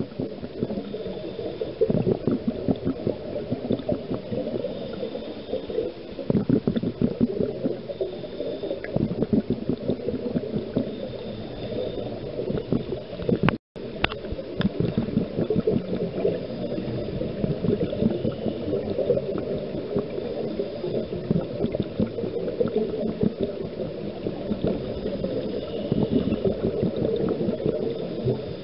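Muffled underwater sound through a camera housing: a scuba diver's exhaled bubbles gurgling and water moving, swelling every few seconds with the breaths. It cuts out briefly about fourteen seconds in.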